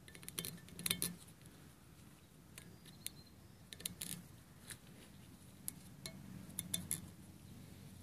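Faint, scattered clicks and light metallic clinks as old O-rings are picked out of the bores of a Ford 6.0L diesel high-pressure oil rail by gloved hands.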